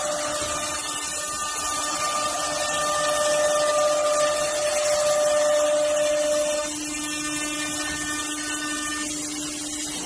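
CNC router spindle running and cutting, a steady high whine over a hiss of cutting noise. About two-thirds of the way through, the pitch pattern shifts and the sound drops slightly in level.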